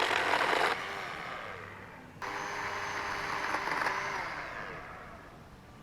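Battery-powered chainsaw running, then released under a second in and winding down. It is triggered again about two seconds in, runs with a high whine, and spins down with falling pitch near the end.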